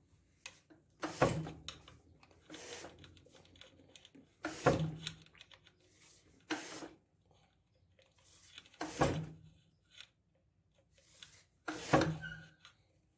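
Hands-on handling sounds as a motorcycle's drive chain is oiled and the rear wheel is turned by hand: four sharp clunks about three seconds apart, a fainter one in between, and light rustling and rubbing.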